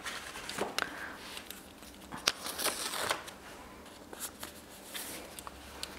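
Close-up paper handling: sticker sheets and planner pages rustling and crinkling, with scattered light clicks and taps. The busiest stretch is in the middle.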